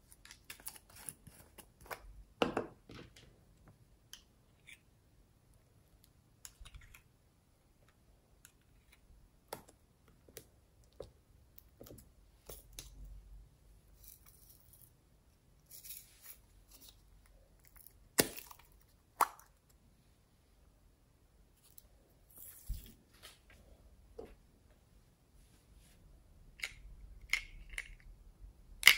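Hands handling small decorative plastic containers: scattered clicks, taps and rustles of plastic, with a few sharper clicks among them.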